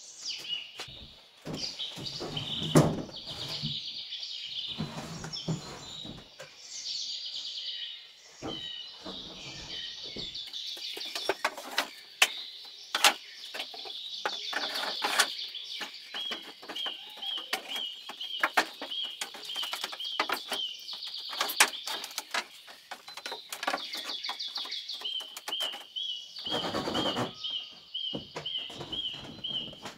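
Birds chirping, with a quickly repeated chirp note twice running for several seconds, over scattered sharp knocks and taps.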